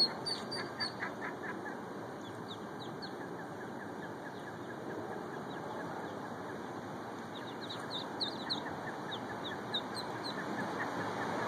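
Mallard ducklings peeping: scattered short, high peeps, clustered at the start and again from about two-thirds of the way in, over steady background noise.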